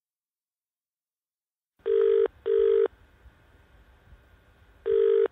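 Telephone ringing tone heard down the line: a British-style double ring, two short rings in quick succession. After a pause of about two seconds, the next double ring begins near the end. It starts after about two seconds of silence.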